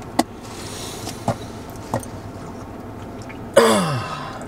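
A few short clicks and gulps as a man sips soda through a straw. About three and a half seconds in comes a loud, drawn-out vocal 'ahh' that falls in pitch.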